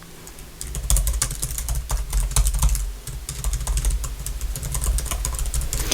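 Fast typing on a computer keyboard: a rapid, unbroken run of light key clicks starting about half a second in.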